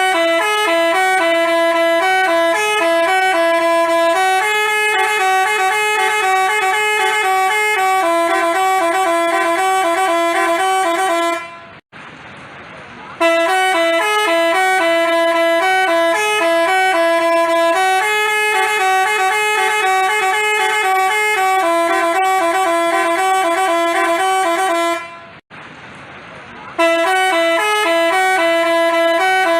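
Basuri telolet horn, the Indonesian musical bus horn, playing a stepping melody of held notes. It runs in long phrases, pausing briefly about twelve seconds in and again about twenty-five seconds in.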